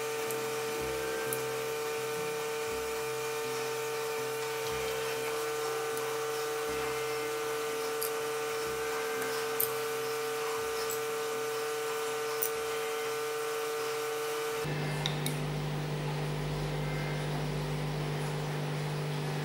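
A steady droning hum of several held tones, which changes abruptly to a lower hum about fifteen seconds in. Over it come a few light clicks as wooden boat frames are set down on a stone counter.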